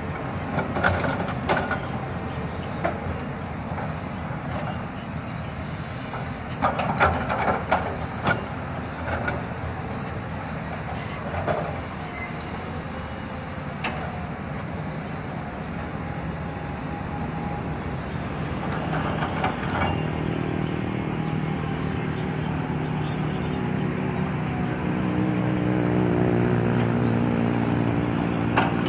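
Heavy diesel engines of a dump truck and an excavator running at an earthworks site, with scattered knocks and clatters. Near the end one engine's note grows louder and rises in pitch.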